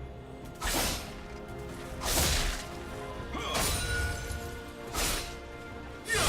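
Music: a sustained droning chord with a short crashing noise hit about every second and a half, four times.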